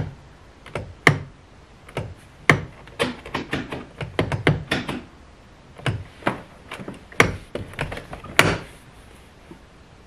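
Chrysler PT Cruiser passenger door's inside handle pulled again and again and snapping back, an irregular run of sharp plastic clacks and knocks. The door does not unlatch: the inside handle has stopped working.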